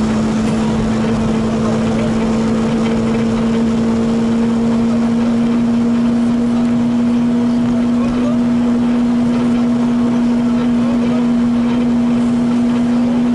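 Volkswagen Golf 2 GTI rally car's four-cylinder engine pulling hard at steady revs, heard from inside the cabin. The note holds one level pitch throughout, with tyre and road noise underneath.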